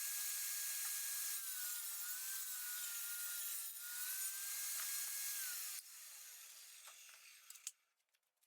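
A power saw running as cedar 2x4s are fed through it to cut a notch. Its pitch sags and recovers under the load of the cut. About five and a half seconds in it is switched off and runs down, followed by a few light clicks.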